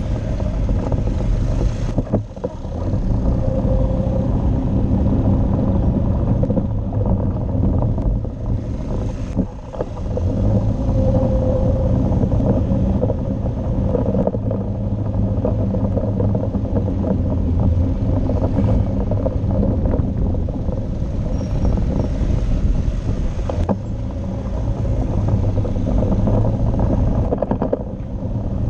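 Motorcycle engine running steadily at riding speed, a low drone with road and wind noise, dipping briefly about two seconds and ten seconds in.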